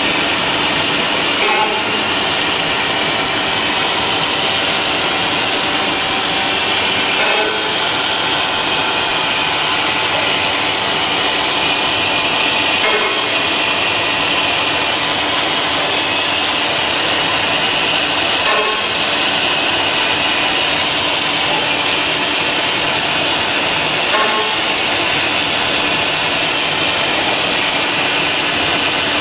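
Busellato Optima C-series CNC router running steadily as its C-axis angle aggregate drills holes into the edge of a round particleboard panel, a loud, high-pitched machining noise with a brief change about every six seconds.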